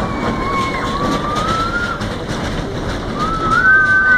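Dragon-shaped kiddie roller coaster running on its track: a steady rushing rumble, with long high squeals that glide slowly down and up, one near the start and another from about three seconds in.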